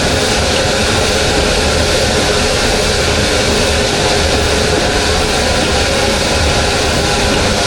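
Steady mechanical running noise of an engine or machine, loud and unchanging, with a low hum under it.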